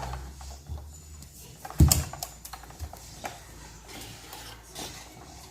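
Scattered light clicks and knocks of plastic toy parts being handled, with one louder thump about two seconds in.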